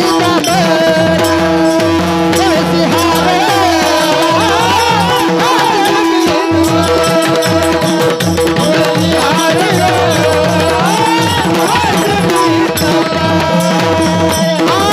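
Marathi devotional abhang music: a high voice holding long, sliding melodic lines without clear words over a steady drone, with a drum keeping the rhythm.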